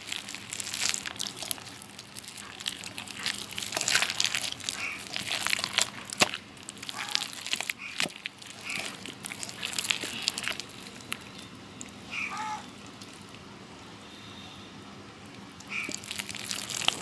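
A hand kneading and squeezing the fibrous, juicy pulp of ripe palmyra palm fruit in a stainless steel bowl: wet squelching and rustling of the fibres with sharp clicks against the bowl, easing off for a couple of seconds past the middle.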